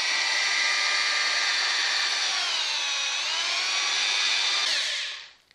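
Electric drill turning a long honey-stirring paddle in a stainless steel bucket of honey: a steady motor whine that dips in pitch briefly around the middle, then winds down and stops near the end. The honey is being stirred to break up its sugar crystals so it sets creamy rather than hard.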